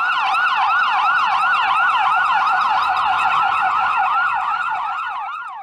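Ambulance siren wailing in a fast yelp, several rising-and-falling sweeps a second, fading out near the end.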